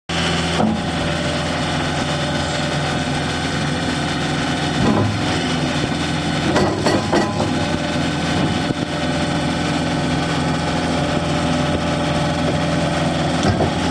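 2015 Gehl RT210 loader's diesel engine idling steadily, with a few knocks and clanks around the middle and again near the end.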